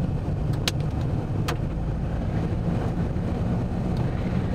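A car driving on an open road, heard from inside the cabin: steady road and engine rumble, with two sharp taps on the car about a second apart.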